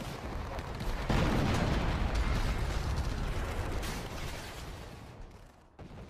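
Explosion-like rumbling blast: a sudden loud jump about a second in that slowly dies away over several seconds, with a short sharp hit near the end.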